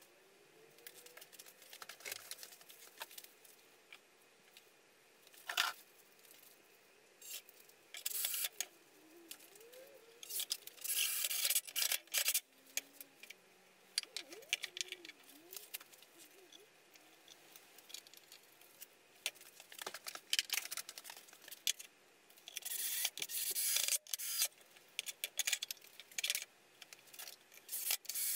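Irregular rubs, scrapes and knocks of softwood battens being glued and pressed together into a frame on a metal saw table, with louder bursts of scraping now and then.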